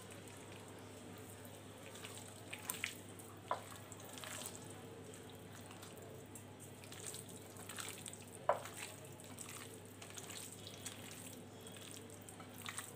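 A hand squishing and kneading raw chicken pieces in a wet yogurt-and-spice marinade: faint wet squelching, with a few short, sharper squelches around three seconds in and again near the middle.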